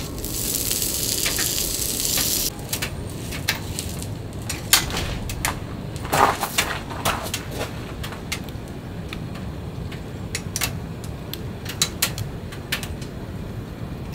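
A steady hiss for about two and a half seconds that cuts off suddenly, then a wood-burning stove's fire crackling, with scattered sharp pops and one louder knock about six seconds in, over a low steady rumble.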